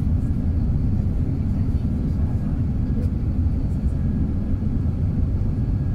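Steady low cabin rumble of an Airbus A380 in flight: the four Rolls-Royce Trent 900 engines and rushing airflow heard through the cabin wall, with a faint steady whine above it.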